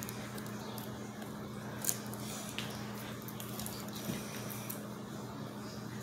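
Kit Kat bar's plastic wrapper being torn open by hand: a few short, faint crinkles and crackles over a steady low hum.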